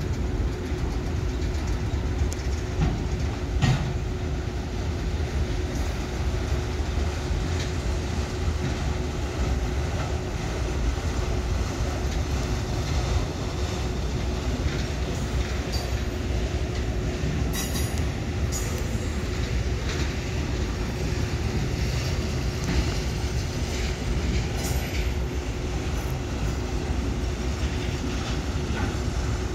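Railcars of a passing train rolling by: a steady low rumble with a steady ringing wheel tone, scattered clicks from the wheels over the rails and a few brief high squeals.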